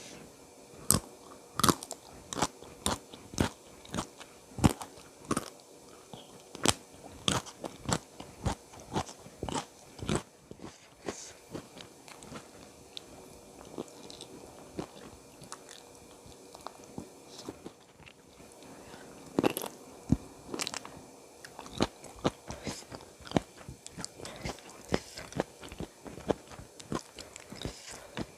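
Close-miked eating sounds: a person biting and chewing crunchy food, with a rapid run of sharp crunches through the first ten seconds, softer chewing clicks after, and another burst of crunching around twenty seconds in.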